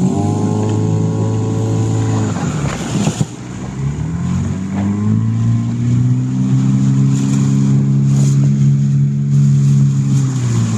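Motorboat engine running, easing off and dropping in pitch about two seconds in, then speeding up again about four seconds in and holding a steady pitch.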